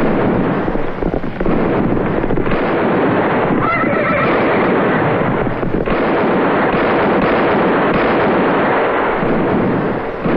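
Loud gunfight soundtrack from a western: a dense, steady din with a few sharp gunshots, and a horse whinnying about four seconds in.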